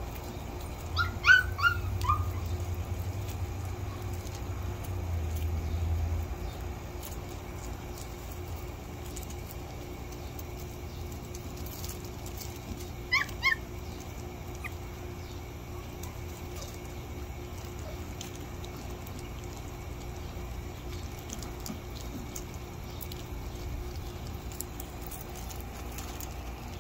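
Sheepadoodle puppies, 4.5 weeks old, giving short high-pitched yips. There is a quick run of four or five about a second in, and two more near the middle.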